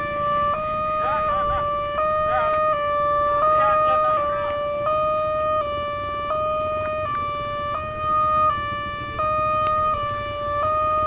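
Automatic railway level-crossing warning alarm sounding: a steady electronic tone switching back and forth between two close pitches, each held well under a second. It is the crossing's signal that a train is approaching.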